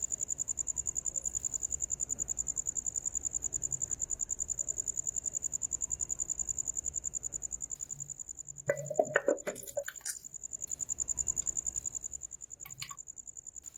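A cricket trilling steadily at a high pitch, with a short cluster of knocks and clicks about nine seconds in.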